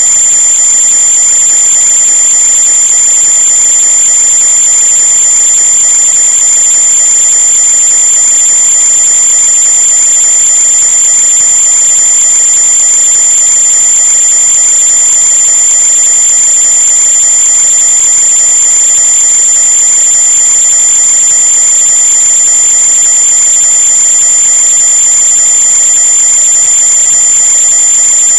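A loud, steady high-pitched whine made of several fixed tones, unchanging throughout.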